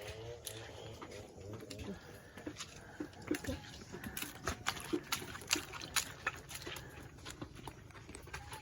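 Chickens clucking softly in their coops, with many short clicks and taps.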